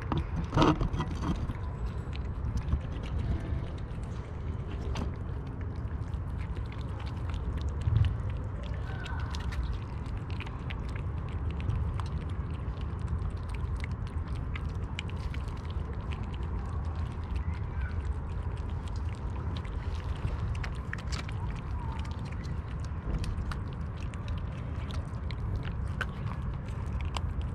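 Several kittens eating wet cat food: a steady patter of small chewing and smacking clicks, over a constant low rumble, with a thump about eight seconds in.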